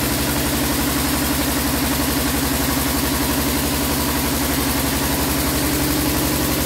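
Diesel engine of a 7.5 kVA single-phase welding generator set running steadily with a rapid, even beat while it powers an arc welder.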